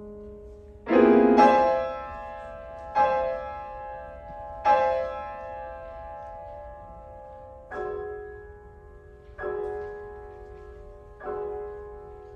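Steinway grand piano played solo: a loud chord about a second in, struck twice more, then three softer chords, each left to ring and fade.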